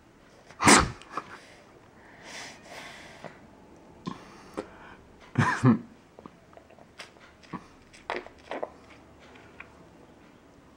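Two loud, sudden cough-like bursts close to the microphone, about five seconds apart, the first the louder. Softer breathy sounds and a few small clicks come in between and after them.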